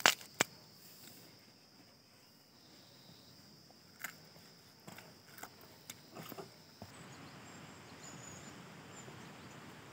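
Footsteps on stone paving: a handful of sharp, uneven steps in the first seven seconds over a steady high-pitched whine. About seven seconds in the whine stops and a steady outdoor hiss with faint high chirps takes over.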